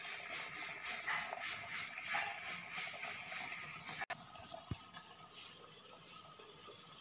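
Water boiling in the steaming pot under the cloth, a bubbling hiss. It turns quieter after a cut about four seconds in.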